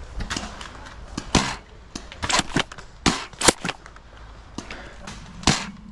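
Foam-dart blasters firing in a Nerf game: several sharp pops at irregular intervals, a few close together.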